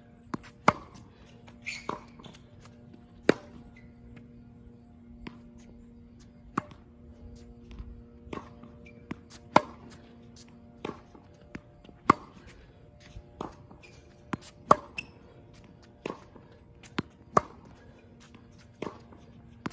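Tennis racket striking the ball in a baseline groundstroke rally on a hard court: a sharp pop about every two and a half seconds, with softer knocks of the ball bouncing between the hits.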